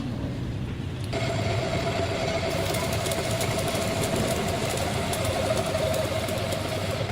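A workshop machine running steadily, its steady whine starting about a second in over a rough mechanical noise.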